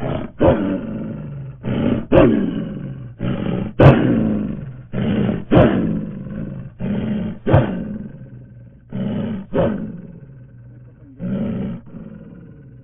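A large animal roaring in a series of short calls, about one every second and a half, each starting sharply and trailing off.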